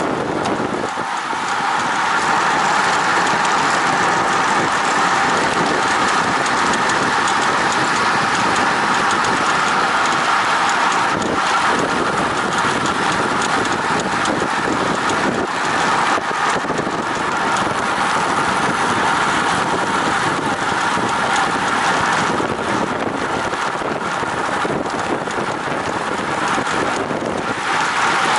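Steady wind rush over an action camera's microphone on a road bike riding at about 45 km/h in a bunch.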